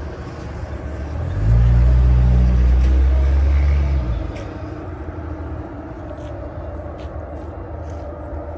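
A low motor-vehicle rumble that comes up about a second and a half in, stays loud and steady for nearly three seconds, then drops away, over a steady background hum.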